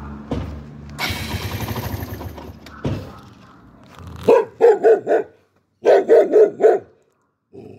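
A Chow Chow barking in quick runs: four sharp barks about four seconds in, four more a second later, and another run starting at the very end, after a few seconds of indistinct rustling noise.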